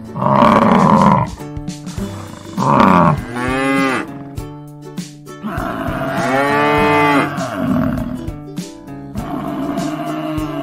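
Water buffalo lowing: three drawn-out moo-like calls in the first seven seconds, over cheerful background music.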